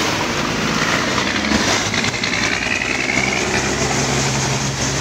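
Traffic driving through floodwater on a city street: engines, including a city bus, running steadily over a constant wash of tyre and water noise, the low engine hum growing stronger in the second half.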